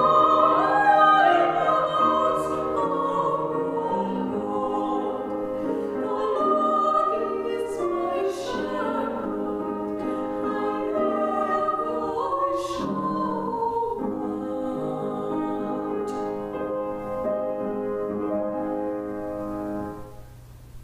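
Two women singing a classical duet in operatic style, with grand piano accompaniment. The music stops about a second before the end.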